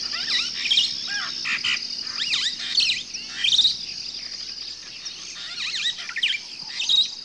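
Many birds chirping and calling over one another in quick, overlapping phrases, over a steady high trilling drone.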